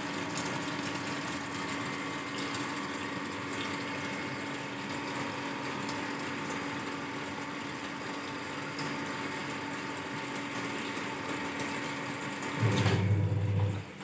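Denpoo DWF-073HT top-loading washing machine running a rinse with water in the tub: a steady motor hum with water swishing. About a second before the end a louder low-pitched sound breaks in.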